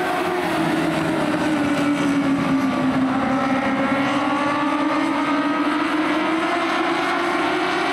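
Race car engines running on an oval track. Their pitch sinks for the first few seconds, then climbs steadily again as the cars accelerate.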